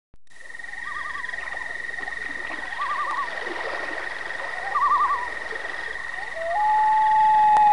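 A steady high whine with a short warbling call repeated about every two seconds, then near the end a long held tone that steps up in pitch and is the loudest sound.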